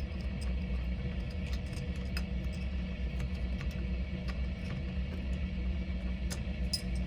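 A motor running steadily with a low drone, with light scattered ticks over it.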